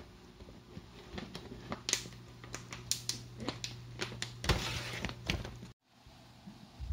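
Plastic pouch of shredded cheese crinkling and rustling as it is shaken out over a metal tray, in a run of sharp crackles with a denser rustle just before it cuts off near the end. A steady low hum runs underneath.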